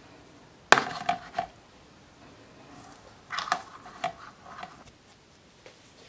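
White plastic bucket lid clicking and clattering as it is fitted onto the bucket. A sharp snap comes about three-quarters of a second in, followed by a few lighter clicks, then another cluster of clicks about three and a half seconds in.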